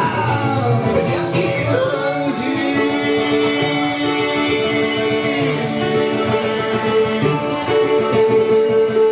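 Live band music: guitar with long held sung or instrumental notes.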